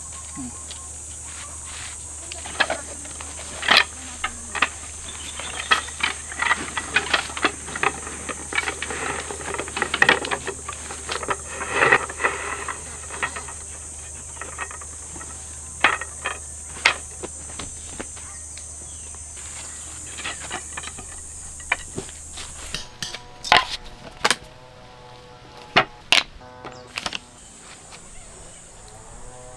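Irregular knocks, clicks and clatter over a steady high insect drone. Near the end the drone drops out and soft music begins.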